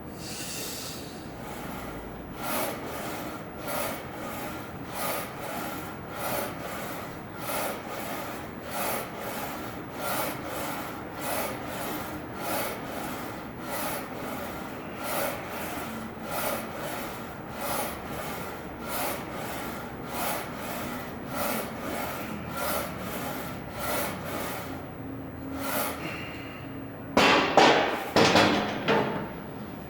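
A gym weight machine worked through repetitions: a steady rhythm of rubbing, sliding strokes, about one rep every 1.2 seconds. A louder burst of scuffing comes near the end.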